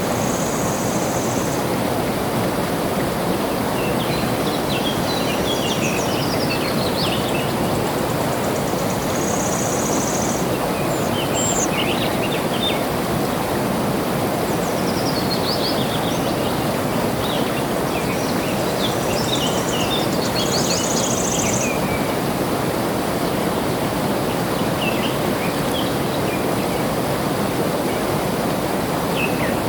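Steady rush of flowing water, with small birds chirping in scattered clusters over it and three short, high, steady trills.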